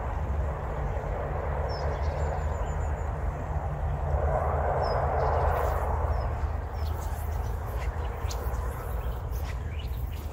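Small birds chirping in short high calls over a steady low rumble, with a louder rush of noise swelling and fading near the middle and a scatter of faint clicks near the end.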